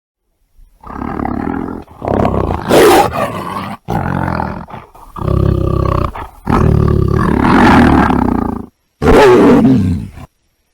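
A big cat roaring and growling: a series of about six loud calls, each a second or two long, with short breaks between them.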